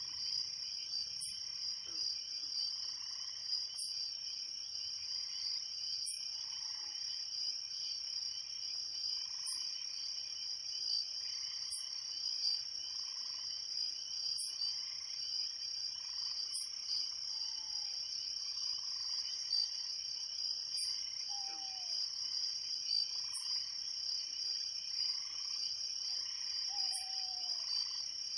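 A steady night chorus of crickets trilling without a break, with a high, short chirp repeating every two to three seconds above it. A few short falling calls come in lower down now and then.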